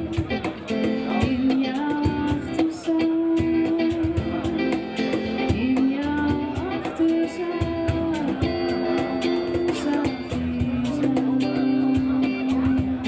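Live acoustic-style band: a woman singing into a microphone, accompanied by an electric guitar played through an amplifier and a cajon tapping out a steady beat. Her long held notes ride over the guitar chords and regular cajon strikes.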